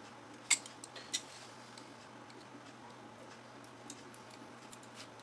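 Knife blade clicking against the TV's metal chassis and foil tape while it is worked under the tape to pry it up: two sharp clicks in the first second or so, then a few faint ticks over a low steady hum.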